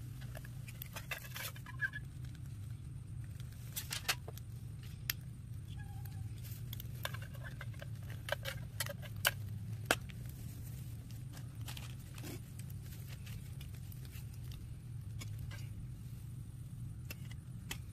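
Metal spoon clinking and scraping against a titanium camp frying pan while food is stirred and the pan is handled: a string of sharp, irregular clinks, thinning out after about 12 seconds, over a steady low hum.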